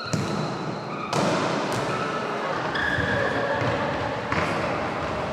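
Futsal being played in a large echoing sports hall: the ball thudding off players' feet and the wooden floor, a few sudden knocks standing out over the hall's background noise.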